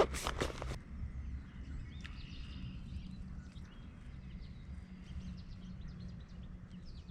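A few short, sharp noises in the first second, then faint scattered bird chirps over a steady low rumble of outdoor background noise.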